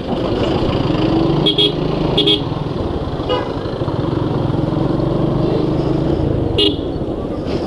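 Motorcycle running steadily while riding on a road, with a low drone and rumble, and several short high-pitched horn toots, four in all, spread through the ride.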